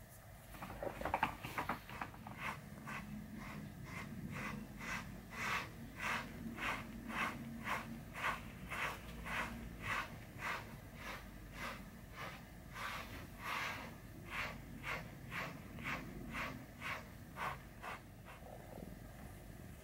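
A grooming brush being drawn through a cat's thick coat in repeated, regular strokes, about two a second, each a short scratchy rasp of bristles through fur. The strokes start about a second in and stop shortly before the end.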